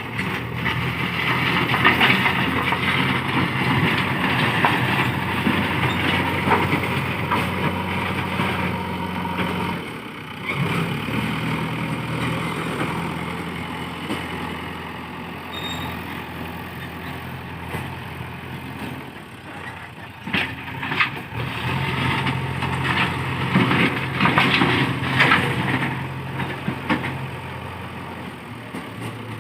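JCB 3DX backhoe loader's diesel engine running under working load, with hydraulic noise over it. The engine briefly dips about a third of the way through, and several clanks and knocks come in the second half.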